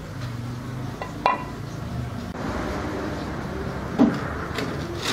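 Handling knocks as a marble slab and a circular saw are set in place on a wooden pallet: a sharp ringing clack about a second in and a louder, duller knock near the end, with no saw running.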